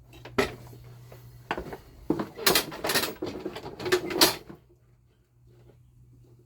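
Knocks, clunks and rattling of a Toro Recycler push mower being handled and tipped over onto its side, a burst of handling noise that stops a little past the middle.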